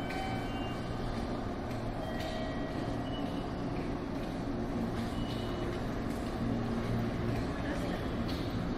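Electric train moving slowly along the platform track below, a steady low running hum with a few brief faint high-pitched squeals.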